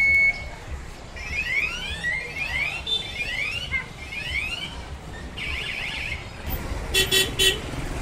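Busy scooter traffic with a short horn toot at the start, then an electronic alarm chirping in quick rising sweeps for several seconds, and three short horn beeps near the end.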